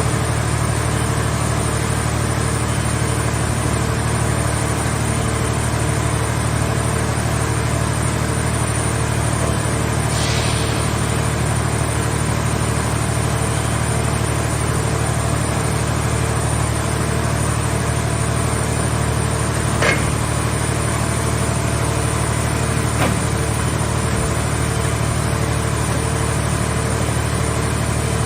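Engine of a scrap car-shell baler running steadily at an even pace, with a low hum. A brief hiss comes about a third of the way through, and two sharp knocks follow later.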